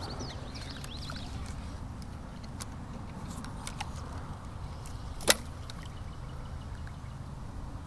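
Angler's spinning rod and reel during a cast over a steady low outdoor rumble, with birds chirping in the first second or so. About five seconds in comes one sharp click, the reel's bail snapping shut after the cast.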